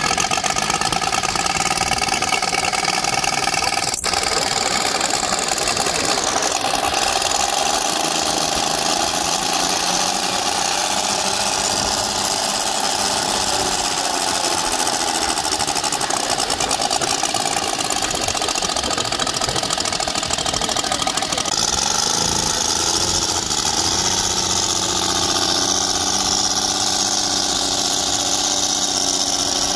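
Saito FG-90R3 three-cylinder four-stroke gasoline radial engine running on its first run-up, swinging a propeller. The engine note shifts up and down a few times as the throttle is worked, with a dip and recovery about two-thirds of the way through.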